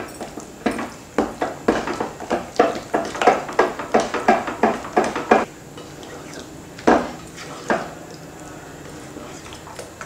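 Spatula stirring and scraping thick, sticky cornflour halwa in a non-stick pot, each stroke knocking against the pan, about three a second for several seconds. It then pauses, and two more strokes follow.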